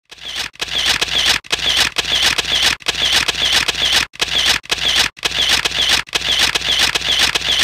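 Camera shutter sound effect repeating in quick bursts, broken by short silent gaps about once a second.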